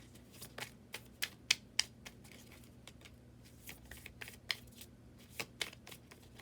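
A tarot deck being shuffled by hand: a string of irregular, crisp card snaps and flicks, a few a second, loudest about a second in.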